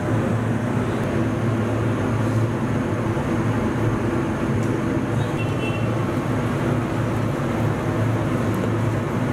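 Steady hum and rumble of commercial kitchen equipment, even throughout with a strong low drone.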